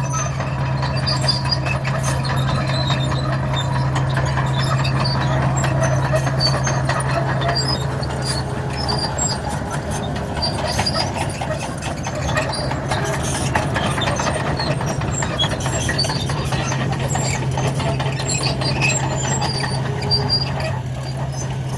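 Komatsu D61 crawler bulldozer's diesel engine running steadily under load, with clattering and squeaking from its steel tracks as it breaks up a chip-seal road surface.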